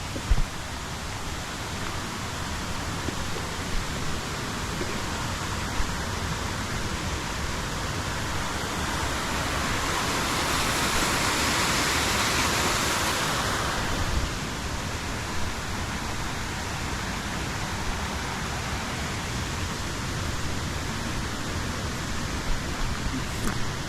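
River water flowing and splashing over stones as a steady rushing, swelling louder for a few seconds near the middle.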